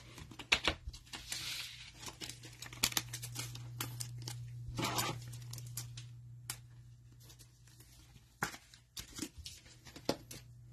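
Trading cards handled: soft clicks and brief swishes as the cards are flipped through and one is slid into a rigid plastic top loader and set down. A faint steady low hum runs underneath.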